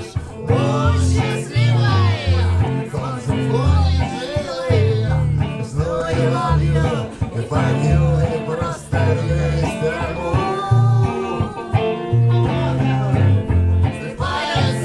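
A song played live: a singer over guitar, with bass notes moving underneath.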